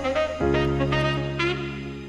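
Background music: a jazz-style instrumental with held chords under a melodic lead line, moving to a new chord about half a second in.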